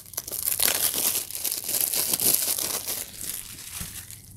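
Plastic shrink wrap crinkling and tearing as it is peeled off a DVD case, a dense run of crackles that is loudest in the first few seconds and thins out near the end.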